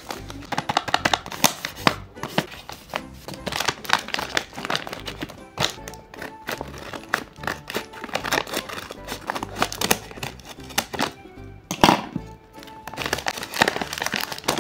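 Paper and tape crinkling and crackling in quick irregular clicks as a handmade paper blind bag is handled and torn open, over background music.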